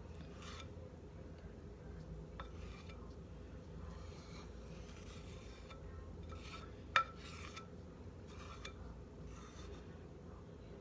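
A utensil scraping thick brownie batter from the sides of a mixing bowl in repeated short strokes. A sharp clink of the utensil against the bowl comes about seven seconds in.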